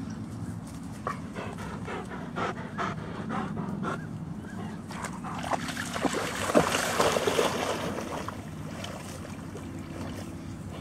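A German Shepherd wading and splashing into shallow water, loudest from about halfway in for two or three seconds. It comes after a run of short rhythmic sounds, about three a second.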